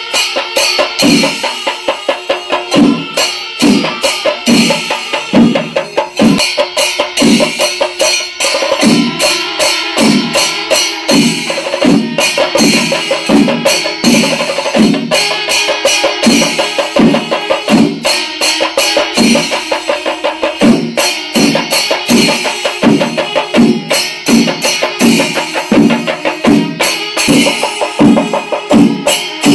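A chenda melam ensemble: many chenda drums struck with sticks and ilathalam hand cymbals playing together, loud and continuous. The drums beat a steady pulse of about two strokes a second under the constant clash of the cymbals.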